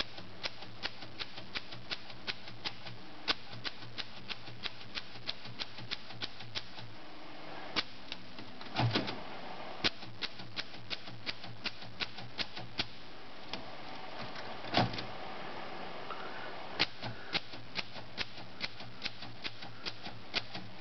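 A 1935 Corona Standard manual typewriter being typed on, its keys and type bars striking the platen at about three clicks a second, with short pauses and a couple of heavier clunks. The type bars are a little prone to sticking, which the owner thinks a little oil would cure.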